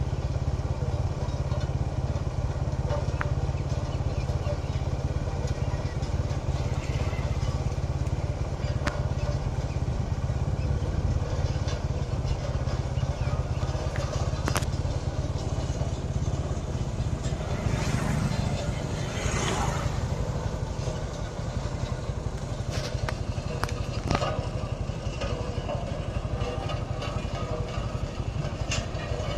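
Road roller's engine running steadily, with a few sharp clicks and a brief rising-then-falling whine about two-thirds of the way through.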